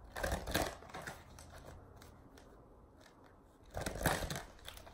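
A deck of oracle cards shuffled by hand: two spells of papery rustling, one at the start and one about four seconds in.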